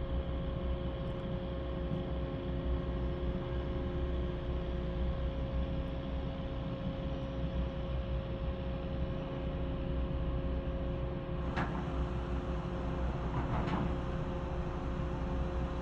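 Steady low rumble and hum of nearby drilling-site machinery, with a few constant tones in it. Two sharp knocks come near the end, a couple of seconds apart.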